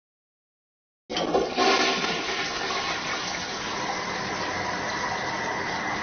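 Toilet flushing: a sudden rush of water starts about a second in and runs on steadily.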